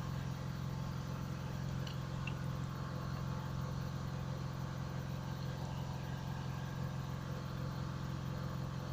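Steady low hum of a running motor, even and unchanging throughout.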